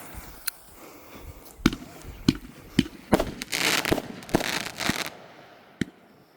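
Thundercracker firecrackers going off: a run of sharp bangs at uneven intervals over a continuous hiss, with a dense burst of crackling about halfway through.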